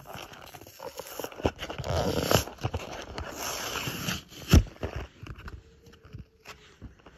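Close handling noise: rustling, scraping and crinkling right at the microphone, with a sharp knock about four and a half seconds in, quieter over the last couple of seconds.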